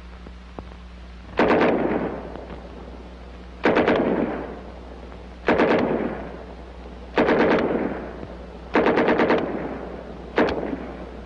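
World War II submachine guns (German 9 mm MP40 'Schmeisser', Thompson .45 and M3 .45) firing on a range in short bursts. There are six bursts, roughly one every one and a half to two seconds, each a rapid handful of shots with an echo that dies away.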